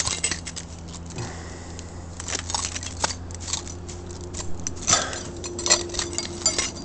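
A bunch of keys jingling in the hand, an irregular run of light metallic clinks with louder clusters about five and six seconds in.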